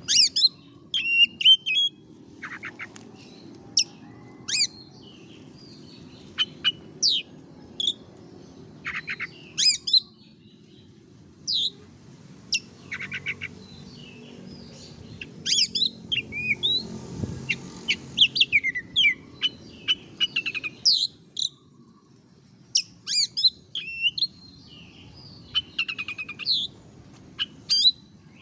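Oriental magpie-robin singing: a varied run of sharp whistled notes and quick sweeping phrases, broken now and then by fast rattling trills.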